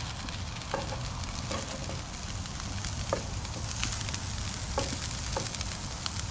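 Diced potatoes and sausage sizzling in a skillet on a portable propane grill, stirred with a wooden spatula that scrapes against the pan about six times.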